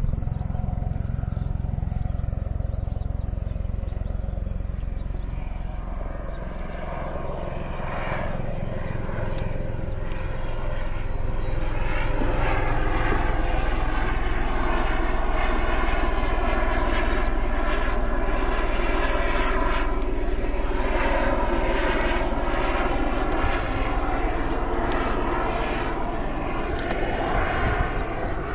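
Helicopter flying overhead, its engine and rotor running steadily. It grows louder after about twelve seconds, with a fast, even chop from the rotor blades.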